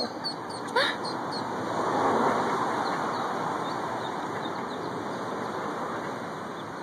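A passing vehicle on the road, its noise swelling about two seconds in and then slowly fading, with faint high peeps from mallard ducklings, mostly in the first second.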